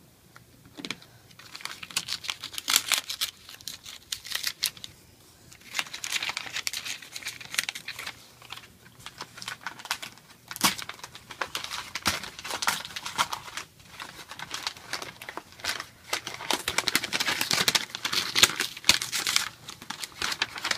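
Paper wrapping being unfolded and pulled back by hand: irregular bursts of crinkling and rustling, with one sharp snap about halfway through.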